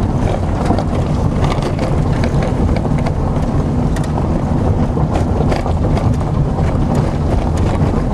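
Dacia Logan's engine running steadily under load as the stock front-wheel-drive car climbs a steep, loose gravel track, heard from inside the cabin. Stones crackle and tick under the tyres.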